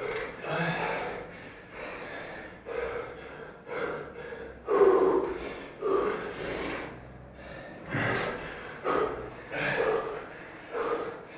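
Heavy breathing from physical strain: forceful exhalations and gasps about once a second, the loudest about five seconds in.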